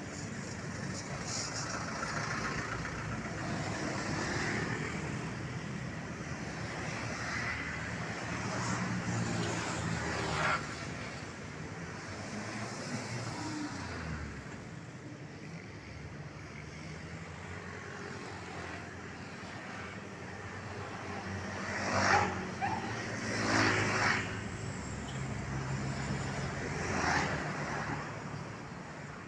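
Road traffic passing: a minibus and motorcycles driving by with their engines running, and a few louder vehicles passing close in the second half.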